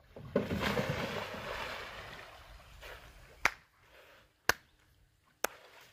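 A splash of lake water that rises suddenly and fades over about two seconds, followed by three sharp clicks about a second apart.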